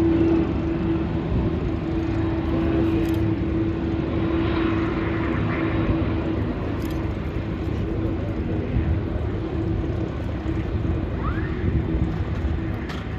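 Boeing 747-400's four jet engines at taxi power, a steady low rumble with a held hum that fades gradually as the jet turns.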